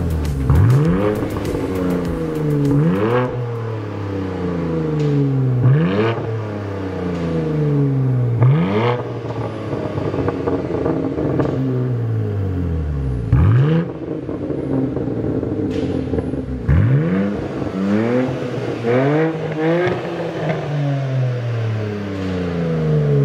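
BMW G80 M3's twin-turbo S58 straight-six free-revving through an AWE Tuning SwitchPath exhaust. About nine sharp blips climb quickly in pitch and fall slowly back toward idle, with several coming in quick succession in the later part.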